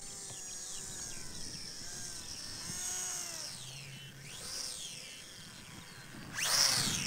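Electric motor and propeller of a small JJRC W01-J3 RC Cub foam plane whining in flight on its landing approach, its pitch rising and falling several times. It gets louder about six and a half seconds in as the plane comes in close.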